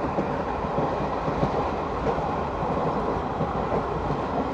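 Indian Railways passenger train running along the track, heard from aboard the moving coach: a steady rumble of the wheels on the rails.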